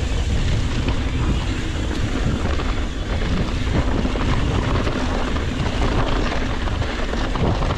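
Wind buffeting the camera microphone over the rumble of an Ibis Ripmo full-suspension mountain bike rolling fast down dry, rocky dirt trail. Frequent small knocks and rattles run through it as the tyres hit stones and bumps.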